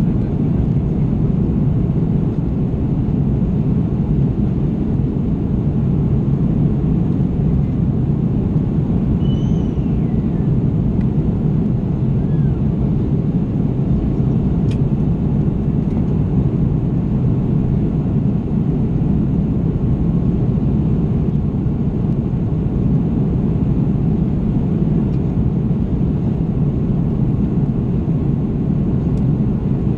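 Steady low rumble of an Airbus A330's jet engines and rushing airflow, heard inside the cabin at a window over the wing in flight.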